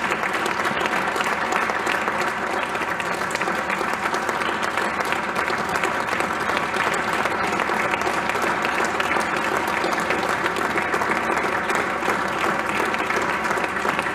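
Audience applauding: dense, steady clapping that keeps an even level throughout.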